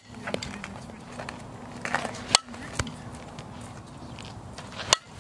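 Fastpitch softball bat hitting tossed softballs: two sharp cracks with a short ring, about two and a half seconds apart, one halfway through and one near the end, with a softer knock shortly after the first.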